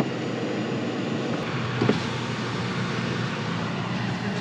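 Car driving: steady road and engine noise, with a brief knock about two seconds in.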